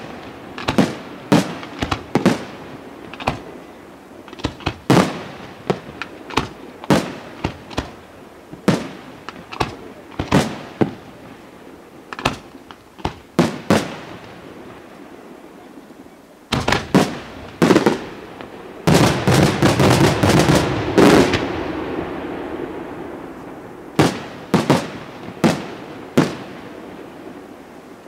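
Aerial firework shells bursting: a run of single sharp bangs, about one or two a second, some echoing. Past the middle comes a few seconds of dense rapid-fire bursts and crackle, then more single bangs near the end.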